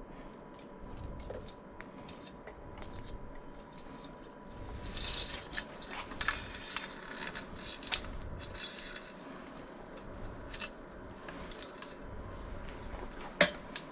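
Hands-on workshop handling of a bicycle's internal cable: scattered small clicks and ticks of metal parts, with a stretch of scratchy sliding and rustling about five to nine seconds in, and a sharper click near the end.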